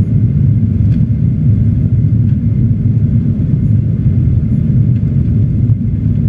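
Steady low rumble of a Boeing 737 in flight, the engines and rushing air heard from inside the passenger cabin.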